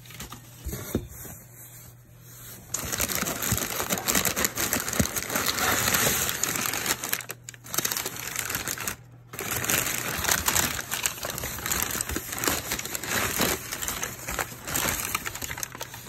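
Packing paper crinkling and rustling as it is pulled apart to unwrap a figurine in a cardboard box. The rustling starts about three seconds in and goes on almost without a break, dropping away briefly twice.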